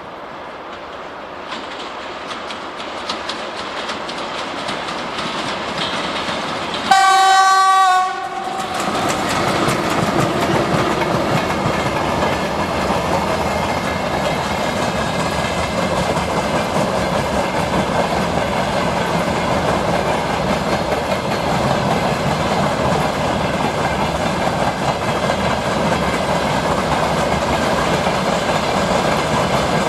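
VL11M electric locomotive drawing near and passing, growing louder, and giving one horn blast of about a second some seven seconds in. The freight wagons then roll past steadily.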